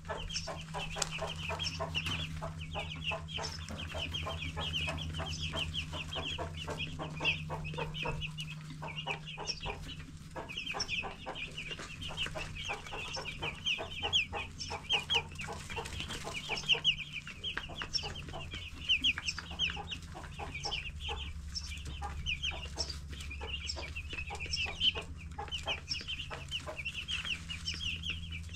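A flock of 10-day-old broiler chicks peeping, many short high chirps overlapping without a break, over a steady low hum.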